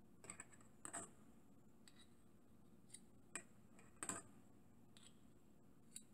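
Metal blade clicking and scraping against a tin can and a small metal cup while scooping jellied Sterno fuel: a handful of short, light clicks, the strongest about four seconds in.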